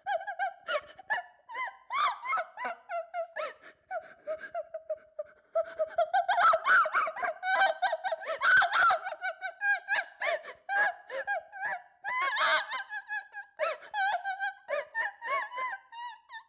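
A girl sobbing in terror: rapid, high-pitched gasping cries and whimpers broken into short catches of breath, growing louder about halfway through.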